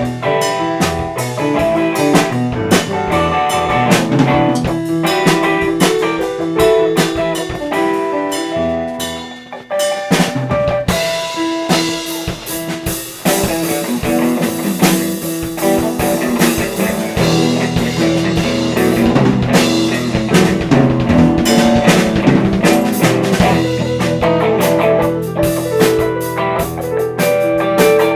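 Background music with drums, bass and guitar keeping a steady beat; it thins briefly near the middle, then comes back fuller.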